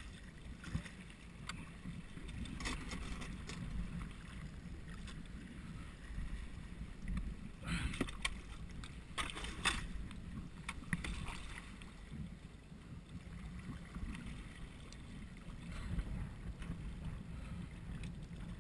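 Sea kayak being paddled through a narrow rocky channel: the paddle blades dip and splash now and then, the strongest strokes about eight and nine and a half seconds in, over a steady low rumble of moving water.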